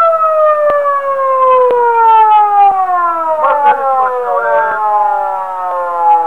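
Highway patrol car's siren sounding one long wail, its pitch falling slowly and steadily. Faint clicks come about once a second underneath it.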